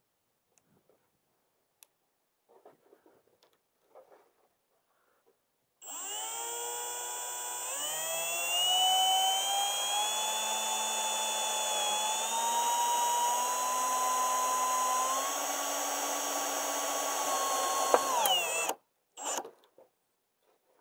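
Cordless drill driving a screw through an aluminium micromesh gutter guard into the gutter: the motor whine starts about six seconds in, steps up in pitch soon after and creeps higher, then winds down and stops a couple of seconds before the end.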